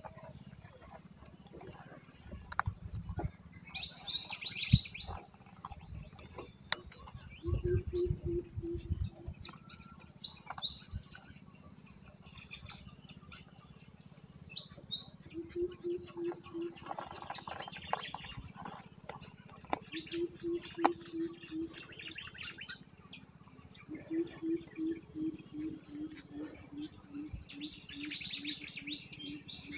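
Tropical forest insects droning at one steady high pitch, with birds chirping now and then. A low hooting call repeats in short runs, the longest about three hoots a second near the end, and a few dull knocks sound in the first third.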